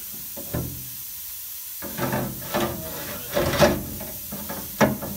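Steel tubes knocking and scraping against a sheet-steel frame rail as they are handled and set into it: one knock about half a second in, then from about two seconds in a run of clunks and scrapes.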